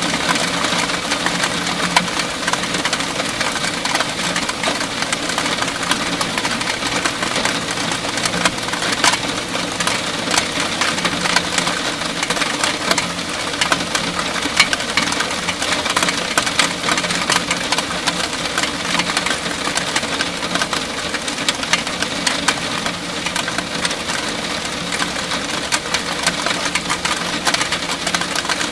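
Heavy rain shower falling steadily, a dense patter of countless drops striking wet roof surfaces, with a faint steady low hum underneath.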